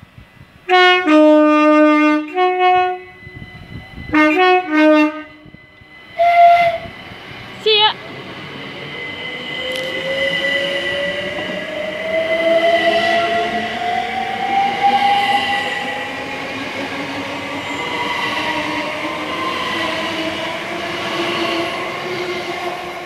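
Great Northern Class 387 electric multiple unit sounding its two-tone horn three times: a long blast, a shorter one, then a brief single note. It then runs along the platform with steady rail noise and a whine that slowly rises in pitch.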